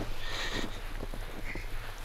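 Footsteps crunching in deep fresh snow, with irregular crackles over a steady low wind rumble on the microphone.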